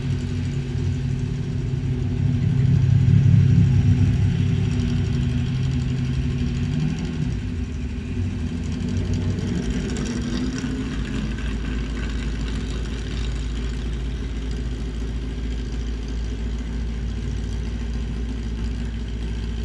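Datsun roadster race car's engine idling while stationary, louder for a couple of seconds near the start, then changing tone about seven seconds in and settling into a steady low rumble.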